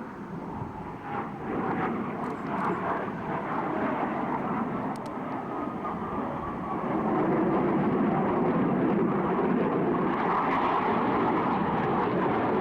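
F/A-18 Hornet jets in flight, a steady rushing noise that grows louder about seven seconds in.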